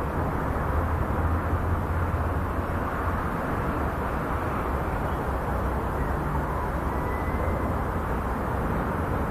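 Engine of a small farm tractor running steadily as it works a ploughed field, heard from a distance as a low, even drone with a wash of background noise.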